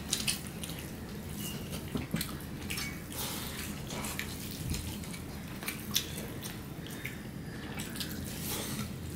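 People eating rice and curry by hand: scattered small wet clicks and squishes of fingers mixing rice on plates, with chewing.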